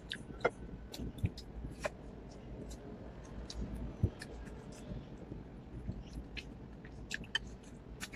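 Close-up eating sounds: irregular wet mouth clicks and lip smacks of chewing, with a few sharper taps, the loudest about four seconds in.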